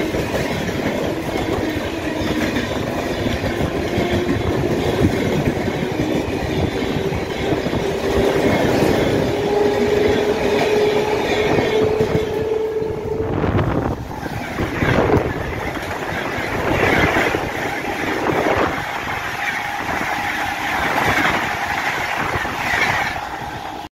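Moving passenger train heard from its open doorway: steady rumble of wheels on rail with clickety-clack over rail joints and wind rushing past, while express trains pass on the adjacent track. A whine slowly rises in pitch through the first half; after a break about halfway, sharp clacks stand out.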